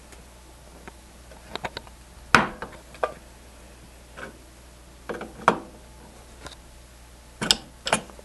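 Scattered clicks and knocks of a refrigerant gauge manifold and hand tools being handled on a tabletop. The loudest knock comes about two seconds in, with a quick pair near the end.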